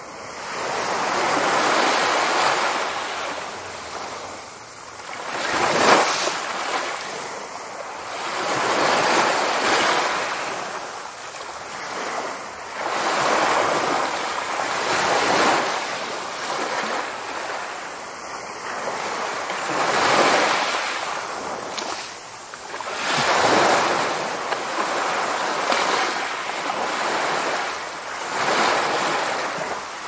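Small ocean waves breaking and washing up a sandy beach. The surf noise swells and fades every few seconds.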